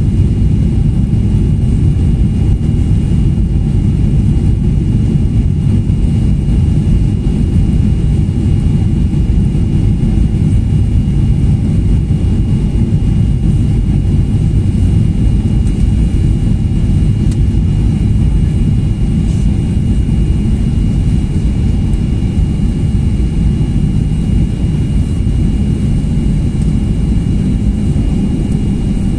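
Cabin noise inside a Boeing 737-800 during landing: the steady low rush of airflow and the CFM56 jet engines, with a faint steady whine above it, unbroken as the aircraft comes down and rolls out on the runway.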